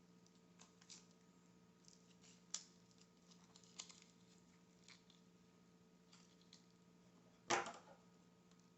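Faint handling noises as double-sided tape is cut and worked onto a refrigerator door flap's plastic hinge part: scattered light clicks and rustles, with one louder brief noise near the end.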